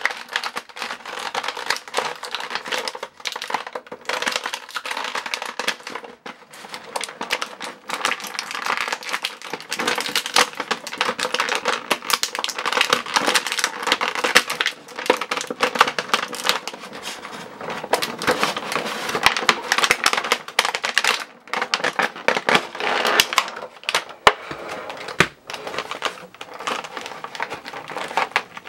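Clear plastic packaging crinkling and crackling as action figures are handled and worked out of their plastic bags and blister tray, a dense irregular run of small crackles and clicks.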